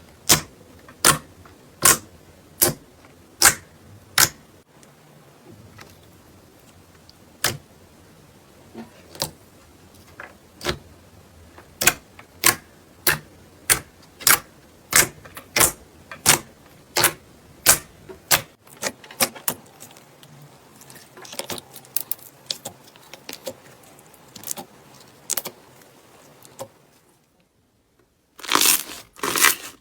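Slime being worked by hand, giving a run of sharp clicking pops about one to two a second, then softer crackling. After a brief silence near the end comes a faster run of louder clicks.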